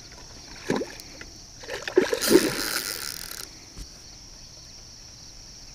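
A hooked common carp splashing and thrashing at the water's surface close to the bank as it is played in toward the net. A burst of splashing comes about two seconds in and lasts over a second.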